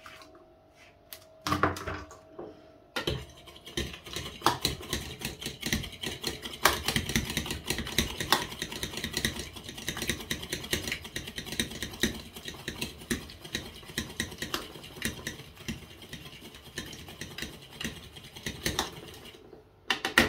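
An egg being beaten in a bowl: rapid, continuous clicking of a utensil against the bowl, starting about three seconds in, after a single short knock, and stopping just before the end.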